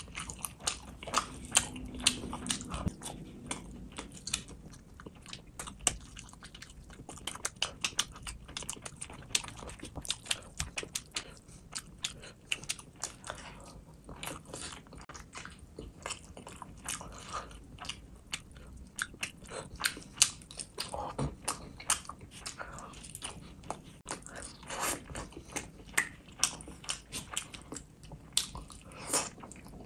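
Close-up chewing and lip-smacking of a person eating fish curry and rice by hand: a steady run of short, wet mouth clicks and smacks.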